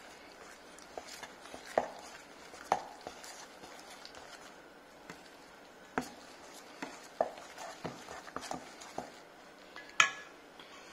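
A spoon stirring thick flour-and-ginger-beer batter in a stainless steel mixing bowl, knocking and scraping against the bowl in irregular clicks. The sharpest knock comes near the end and leaves the bowl ringing briefly.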